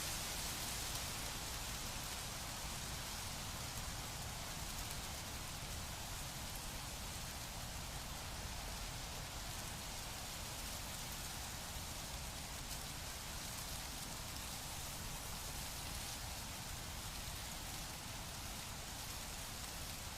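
Wind blowing through leafy plants: a steady, even rustling hiss of leaves, with a low rumble of wind underneath.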